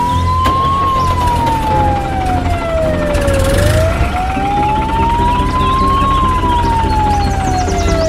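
Slow wailing siren: a single tone that rises and falls twice, about five seconds per cycle, over a steady low drone.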